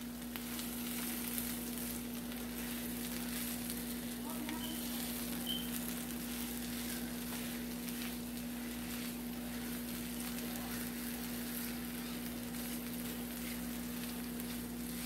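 Potatoes and eggs sizzling in a nonstick frying pan as a silicone spatula stirs and flips them, over a steady low hum.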